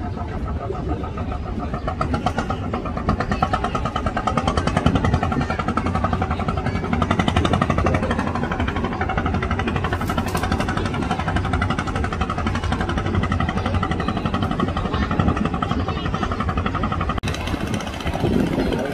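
Small fishing boat's engine running steadily, with a fast, even firing rhythm. The sound changes abruptly about 17 seconds in.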